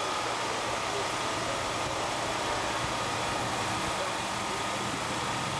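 Steady drone of idling ambulances, with the indistinct voices of a crowd mixed in.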